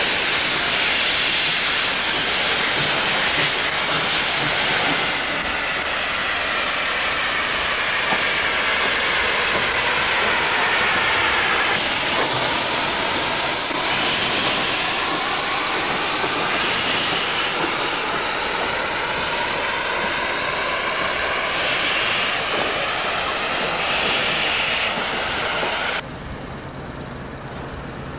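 Loud steady hiss of steam escaping from a 4-6-0T steam tank locomotive, venting at the cylinders. About two seconds before the end it cuts to a much quieter background.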